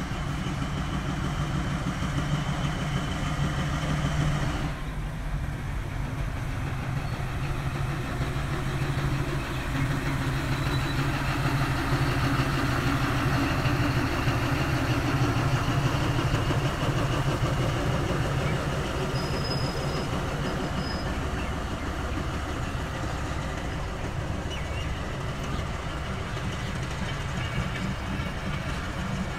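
Diesel-electric locomotive engine running with a steady low hum, growing louder for a while mid-way as the train moves off with its coaches rolling along the rails.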